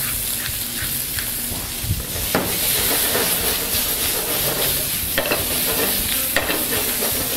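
Sliced potatoes with onion and garlic frying in olive oil in a pan, a steady sizzle, with a few short knocks as the pan is shaken and tossed over the gas burner.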